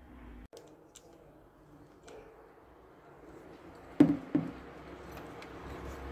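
Two sharp knocks about a third of a second apart, about four seconds in, preceded by a few faint clicks, as a hand works the car's trunk lid and its lock.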